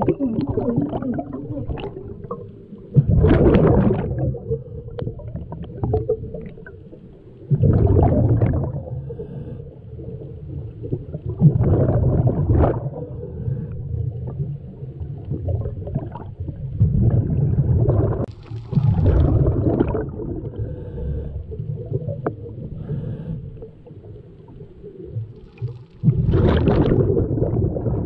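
Scuba diver breathing through a regulator underwater: loud rushes of exhaled bubbles every four or five seconds, with quieter inhalation stretches between them.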